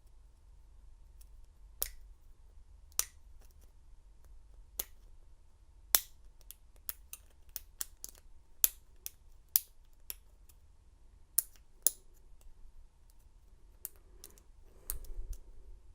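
Sharp metallic clicks of lock-picking tools working in a Master Lock No. 230 five-pin padlock. They come a second or more apart at first, then several a second from about six seconds in, with soft handling rustle near the end.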